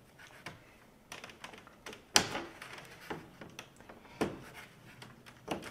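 Plastic push rivets and trim being pried loose from a car's front end: scattered light clicks and taps, with two louder knocks about two seconds and four seconds in.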